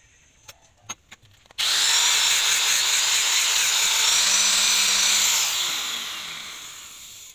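Electric power tool starting abruptly after a few light clicks, running at a steady speed with a high whine for about four seconds, then switched off and winding down with a falling pitch.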